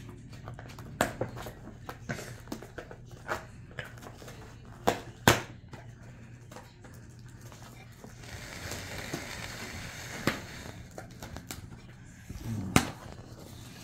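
Handling noise: scattered sharp clicks and taps over a low steady hum, with a few seconds of crinkling rustle about eight seconds in.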